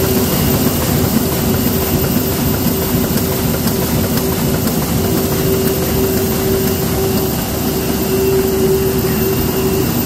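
Heidelberg Speedmaster SM 102 four-colour sheetfed offset press running: a loud, steady mechanical din with a constant hum through it.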